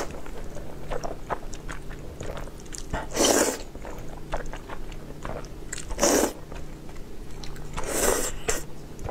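Slurping of sauce-coated zhajiangmian noodles, three loud slurps about two to three seconds apart, with soft chewing and smacking clicks between them.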